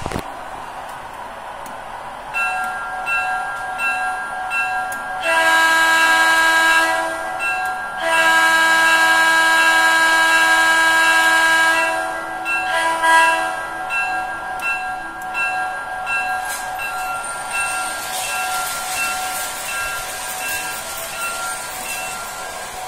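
MTH 408E model electric locomotive's Proto-Sound 3 sound system: a bell rings steadily about twice a second while the train runs, and the horn sounds three times, a short blast, a long blast of about four seconds, then a short one.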